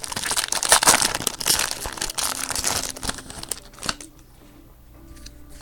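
Foil wrapper of a trading-card pack crinkling and tearing as the pack is opened. The crackling is dense and stops after about three and a half seconds.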